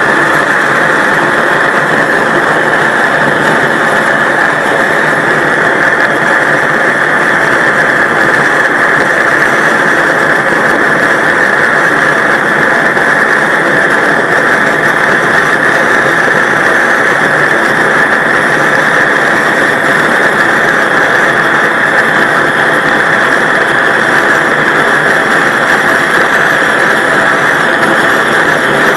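Large butane gas torch burning at full blast against an apple, a loud, steady rushing roar of the flame that never lets up.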